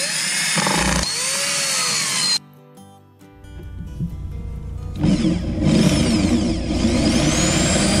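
Power drills boring into a steel hinge plate in two runs: a cordless drill runs for about two and a half seconds and stops, then a corded drill starts and drills for the rest of the time, its motor whine rising and falling as the bit bites.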